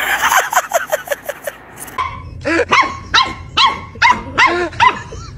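A dog yips in a quick run of short calls, then, after a break about two seconds in, a puppy barks again and again in high yaps, about three a second.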